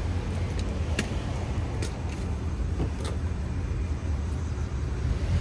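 Steady low rumble of an idling car, with three faint clicks about a second apart.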